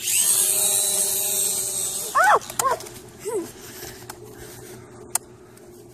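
Air Hogs Millennium Falcon toy quadcopter's rotors spinning up with a high whine, running for about two seconds and then cutting out. A few short high yelps follow.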